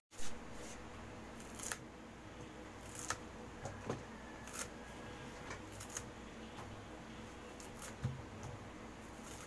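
Scattered soft clicks, knocks and rustles as hands of green bananas are picked up and handled on a table, the loudest knock just after the start.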